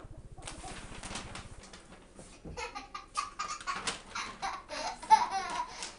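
A large paper shopping bag rustling and crackling over a toddler's head, then a young child's giggles and excited squealing laughter from about halfway.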